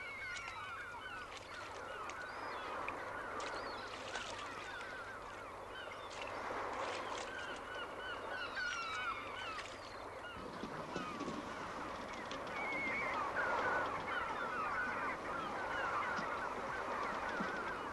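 A flock of birds calling: many short, overlapping honking calls that run on without a break and grow somewhat louder in the second half.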